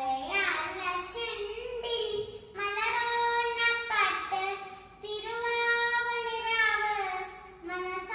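A young girl singing a Malayalam song solo and without accompaniment, in long held notes and phrases with short breaths between them.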